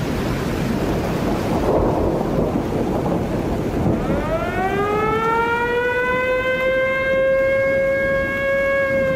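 A rushing, rumbling noise, then about four seconds in a siren starts wailing, rising in pitch over a couple of seconds and then holding steady.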